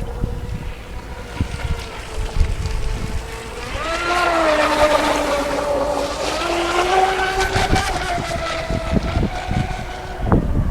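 High whine of an RC speedboat's brushless electric motor on a 4S battery as the boat runs on the water. The whine grows louder about four seconds in and wavers in pitch with the throttle and distance, then fades near the end. Wind rumbles on the microphone.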